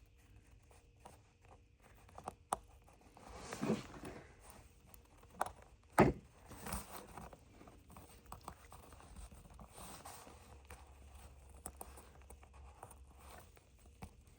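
Small clicks, scrapes and handling noises as a condensate pump's float switch housing is pried open by hand, with one sharp knock about six seconds in.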